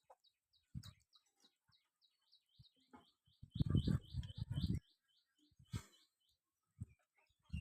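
A bird chirping rapidly, with short high chirps about five a second that stop about five seconds in. About halfway through, a second or so of loud low thumping drowns the chirps, and a few single low thumps come before and after.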